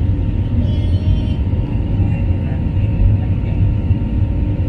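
Steady low rumble of jet engines and rushing air, heard inside the cabin of an AirAsia Airbus A320-family airliner climbing out after takeoff.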